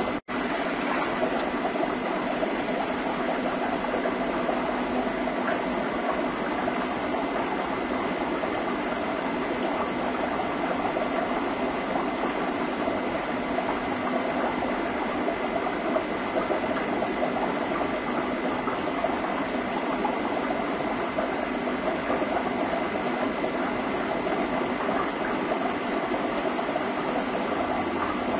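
Aquarium water circulation: a steady rush of moving, bubbling water with a faint high tone held steadily through it. It cuts out for an instant just after the start.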